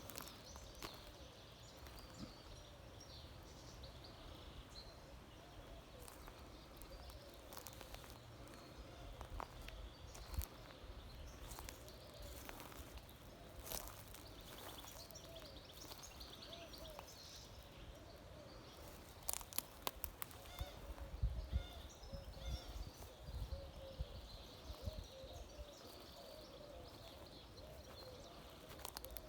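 Faint pine-forest ambience with birds calling and singing throughout, with scattered clicks and low bumps, louder between about 19 and 24 seconds in.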